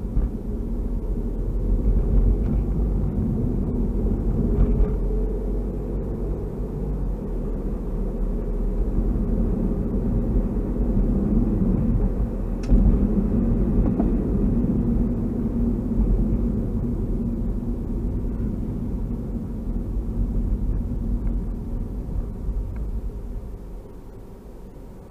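Car cabin noise from a moving car, picked up by a dash cam's built-in microphone: a steady low rumble of engine and tyres on the road, with a single sharp click about halfway through. The rumble drops off near the end as the car slows to a stop.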